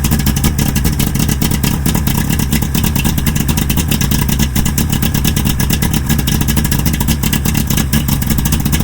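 1997 Evinrude 90 HP 60° V4 two-stroke outboard motor running steadily at idle with a rapid, even firing rhythm, having started instantly on a diagnostic key switch wired straight to the engine. Its running shows the motor itself is fine: the no-start fault lies in the boat's harness or helm key switch.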